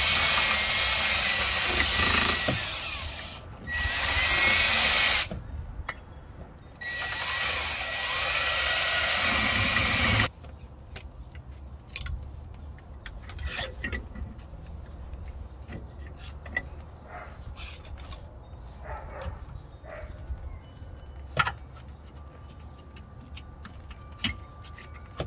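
Ridgid cordless drill running in three bursts, each with a steady whine, drilling out the rotted rubber of a rear lower shock bushing on a Nissan 300ZX. After about ten seconds the drill stops, leaving quiet scraping and clicking as the leftover rubber is picked out with a hand tool.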